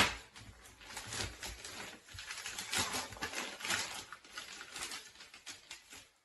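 Packaging being handled and opened: a dense, irregular run of crinkling and crackling, with a sharp click right at the start. It cuts off suddenly near the end.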